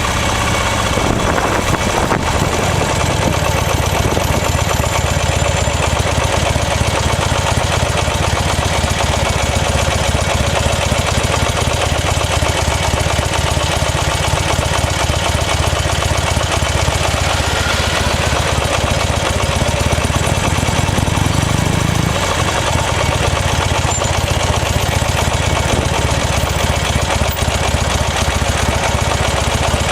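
Buell XB9S Lightning's V-twin engine running steadily, its low note shifting about two-thirds of the way through.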